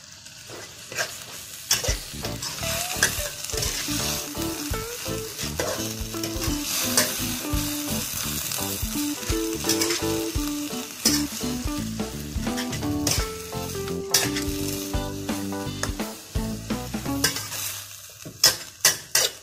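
Amaranth greens with chillies and garlic sizzling as they stir-fry in a wok. A metal spatula scrapes and clicks against the pan again and again as the greens are tossed.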